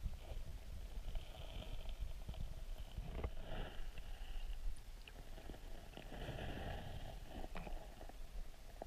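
Underwater sound of a flowing river heard through a camera housing: a steady low rumble of moving water with a few sharp clicks.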